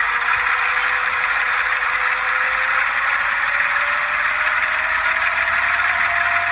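Recorded diesel engine sound of a GE ES44AC from an ESU LokSound 5 decoder, played through the HO scale model's small onboard speakers as the throttle is raised: a steady engine drone with a whine that rises slowly in pitch.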